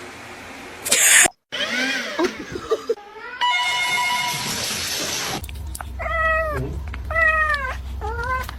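Cats meowing. After a short loud burst of noise, a few short meows follow. Then comes a run of loud, drawn-out meows about once a second over a low hum.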